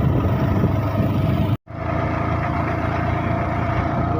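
Motorcycle engine running at a steady pace while riding, with road and rain noise. The sound cuts out completely for an instant about a second and a half in, then carries on as before.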